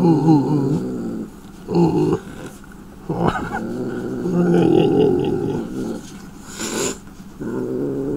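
Angry domestic cat growling and yowling in low, drawn-out, wavering bouts with short breaks, a hostile warning from a cornered cat. A short hiss comes about two-thirds of the way through.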